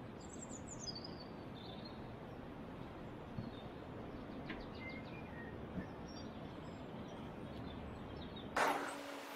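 Steady outdoor background noise with a bird calling: a quick descending run of high chirps about half a second in, then a few faint chirps later. Near the end a sudden loud thump cuts in.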